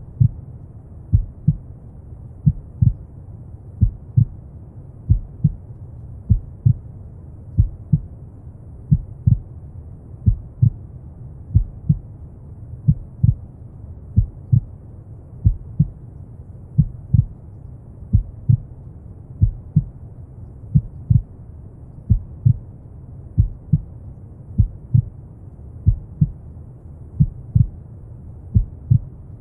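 Slow, steady heartbeat, each beat a double thump about once a second, over a steady low rumbling brown noise.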